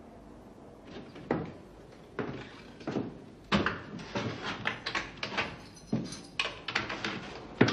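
Footsteps and door knocks in a wooden stairwell: a few single thumps, then from about three and a half seconds in a quick, uneven run of thuds and knocks.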